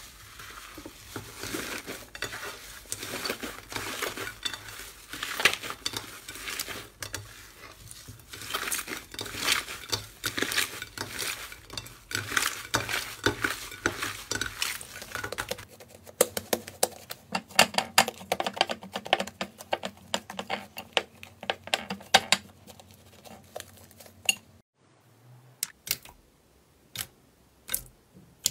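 Slime being squeezed and kneaded by hand: dense wet crackling and popping. From about halfway, a busier run of crisp crackles, and in the last few seconds a few separate sharp pops as clear slime is pressed with the palm.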